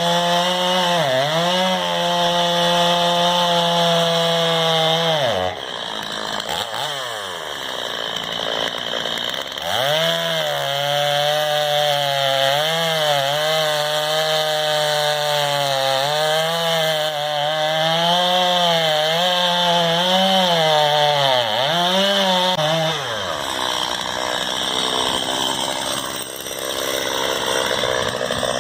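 Two-stroke chainsaw at high revs cutting into a cherry trunk, its engine pitch sagging and recovering again and again as the chain bites into the wood. About six seconds in it drops briefly toward idle, then revs back up into the cut.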